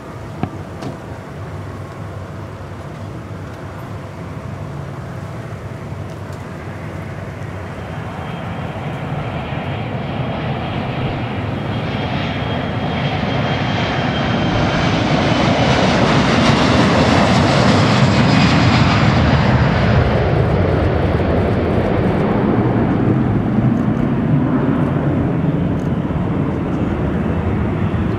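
Boeing 767-300 airliner's twin turbofan engines at taxi power as it rolls past, a steady jet noise with a high turbine whine that grows louder to a peak a little past halfway, then eases slightly. A single short click about a second in.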